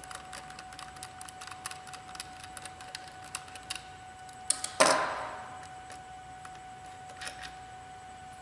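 Small screws being backed out of a plastic tool housing with a hex driver: a string of light metal-on-metal clicks, then one sharp knock about five seconds in and a few more clicks near the end, over a faint steady tone.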